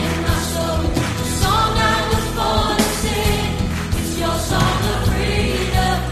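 A choir singing a contemporary worship song over a steady instrumental backing with bass and regular beats.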